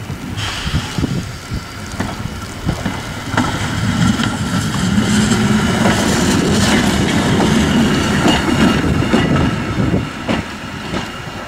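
Class 77 diesel railcar running into the station and passing close by: a low engine drone swells to its loudest midway as it goes past, then falls away. Sharp wheel clicks over rail joints and points come throughout.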